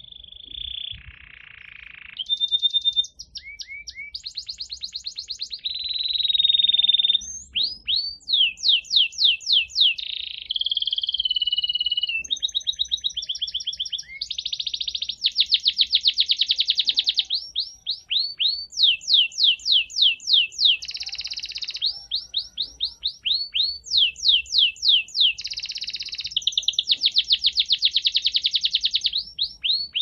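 Spanish canary singing a long, continuous song: rapid trills of repeated sweeping notes alternating with held high whistles and rolls, with short breaks between phrases.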